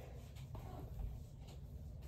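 Hairbrush drawn through long hair: soft brushing swishes, about one stroke a second.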